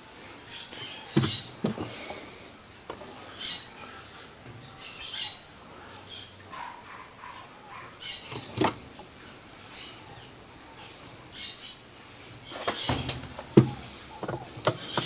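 Intermittent metal-on-plastic squeaks, scrapes and clicks as an agitator puller's screws are turned, one side then the other, to lift a washing machine's agitator off its shaft. The sharpest click comes about eight and a half seconds in.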